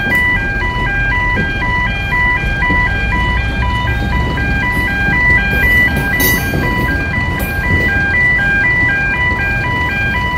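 Level crossing warning alarm sounding a steady alternating two-tone wail, over the low rumble of loaded tank wagons rolling slowly across.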